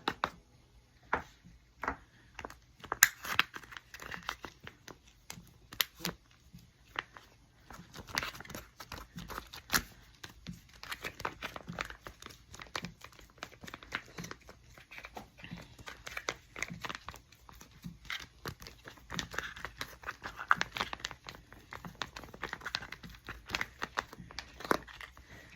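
Irregular plastic crinkling and rustling with light clicks and taps, from handling and filling plastic toddler food pouches.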